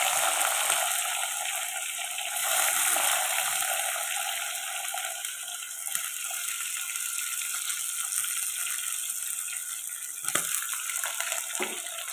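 Garlic cloves sizzling in hot coconut oil with fennel seeds in a pan, a steady hiss that is strongest just after they go in and eases a little. Near the end a few sharper crackles and pops as green chillies drop into the oil.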